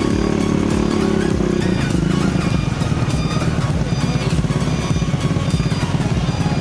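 Hino 500 truck's diesel engine running hard under load, a steady deep rapid pulsing. Background music plays faintly over it.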